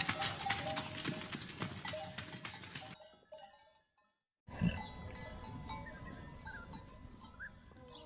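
Bells clanking amid a flock of livestock, then a short break and a second, quieter recording of the flock with a few short calls.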